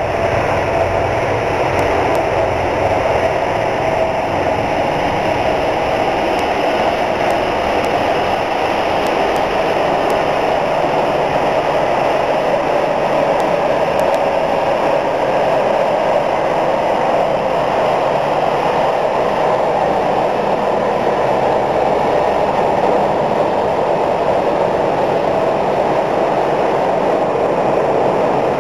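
Jet airliner engines running, a loud steady roar with no breaks, and a faint whine that fades after the first few seconds.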